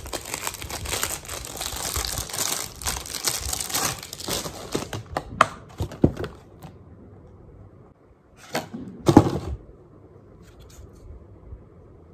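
Clear plastic packaging crinkling and tearing as a makeup brush is unwrapped, for about the first five seconds. A few sharp clicks follow, then two short rustles about two-thirds of the way in, and quiet room tone after that.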